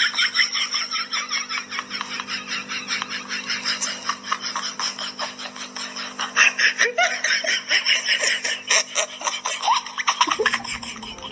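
A person laughing hard and without a break, in rapid pulses, over a steady low hum that stops near the end.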